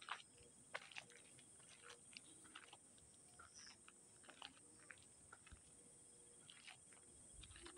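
Near silence: faint crunching footsteps on a gravel road, as irregular soft scrapes, over a steady high whine.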